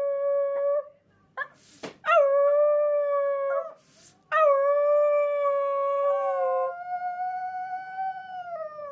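Chihuahua howling: one howl trails off under a second in, then two more follow, each opening with a quick drop in pitch. The last is held about four and a half seconds and steps up in pitch partway through, with short breaths heard between howls.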